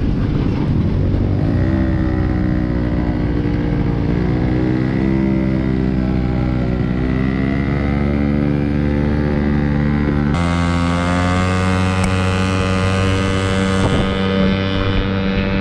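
Honda Gyro X's 50cc two-stroke engine running under throttle, its pitch climbing and easing. The sound changes abruptly about ten seconds in.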